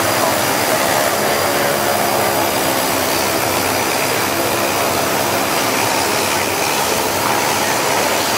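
Steady, loud mechanical roar of machinery and ventilation filling an aircraft carrier's hangar bay, unchanging throughout.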